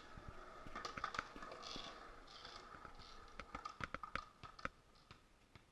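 Faint, irregular clicks and taps, with a faint steady high tone underneath.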